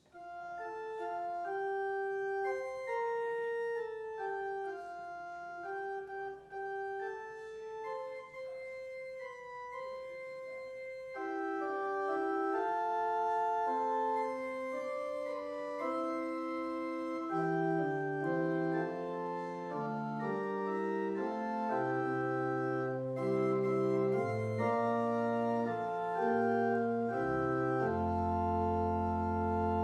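Church organ playing a slow piece, with sustained notes over a quiet accompaniment. Lower voices enter about halfway through, deep bass pedal notes join after that, and it builds to a full held chord near the end.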